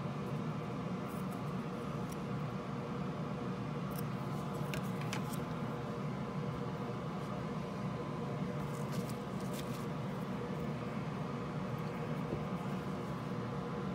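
Steady background hum with a faint high whine held on one pitch, and a few light clicks now and then.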